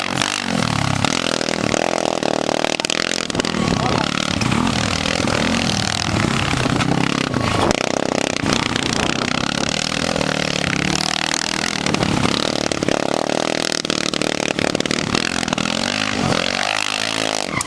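Formula Student race car's engine revving hard as it is driven around a cone course, its pitch repeatedly climbing under acceleration and dropping off as the driver lifts for the turns.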